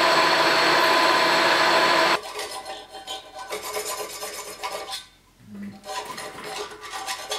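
A machine drill boring into metal, a loud steady whine that cuts off about two seconds in. Then a small hand file rasping back and forth across a metal strip clamped in a vice, about two strokes a second, with a short pause near the middle.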